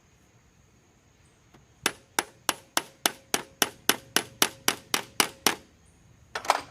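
A hammer striking metal: a run of about fourteen quick, even blows with a faint ring, then one more knock near the end.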